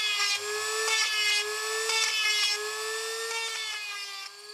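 Small electric engraving tool whining as it cuts into a tortoise's shell, its pitch wavering up and down as it bites. It stops shortly before the end.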